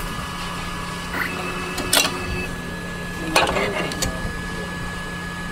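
Zebra PVC card printer running with a steady hum and a high whine, with sharp mechanical clacks about two seconds and three and a half seconds in.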